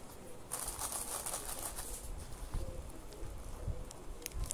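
Tissue paper rustling and crinkling as hands handle it around the products in a corrugated-paper gift box, loudest in the first two seconds, followed by a few light taps and knocks.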